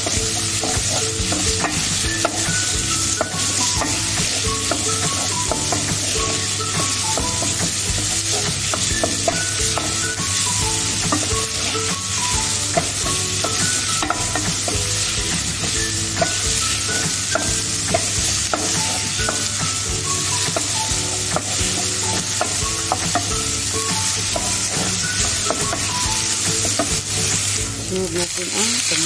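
Diced onions sizzling steadily as they fry in a non-stick pan, stirred and scraped all through with a wooden spoon that knocks lightly against the pan.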